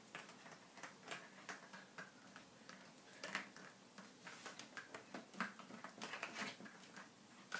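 Faint, irregular clicks and scuffles from a young Labrador puppy tugging and mouthing a rope tug toy.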